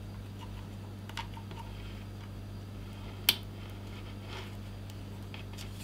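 Small handling clicks and rubs from a 2.5-inch hard drive and its mounting tray as a SATA data cable is fitted, with one sharp click a little over three seconds in, under a steady low hum.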